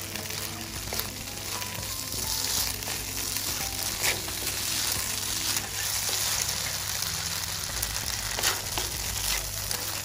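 Rice noodles sizzling as they are stir-fried in a hot pan, with black sauce being tossed through. The spatula knocks and scrapes against the pan now and then.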